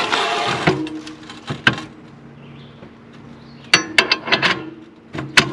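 Metal hitch parts being handled and repositioned: a scrape, then a series of sharp metal clanks, most of them bunched together about four seconds in, with a short ring after them.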